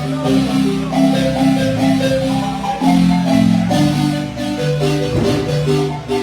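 Marimba playing a son: several mallet parts at once, a low bass line under a busier melody, sounding continuously.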